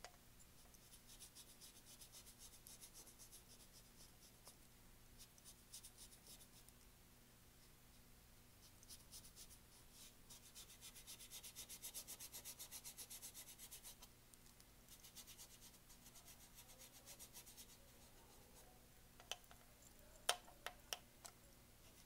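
Large flat paintbrush scrubbing acrylic paint onto a canvas: faint, quick back-and-forth strokes in several runs, with a few light taps near the end.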